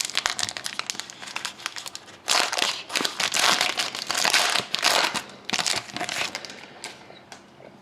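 A trading-card pack wrapper being torn open and crinkled in the hands. The crackling comes in bursts, loudest in the middle, and dies down near the end.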